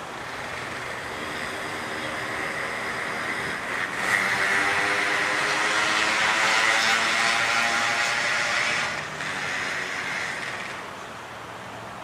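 Diesel-electric locomotive engine running under power as it pulls a passenger train away from a station stop, growing louder about four seconds in and easing off near the end, with a high hazy whine over the engine note.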